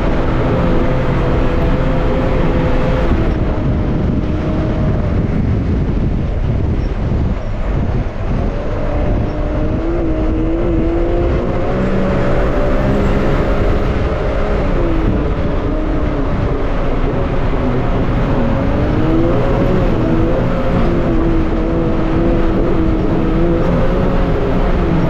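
Can-Am side-by-side's engine running under load while driving across sand, heard from inside the open cab. Its pitch rises and falls several times with the throttle, over a steady low rumble and rush of noise.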